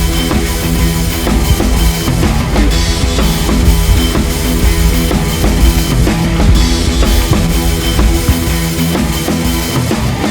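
Rock background music with a steady drum beat and bass.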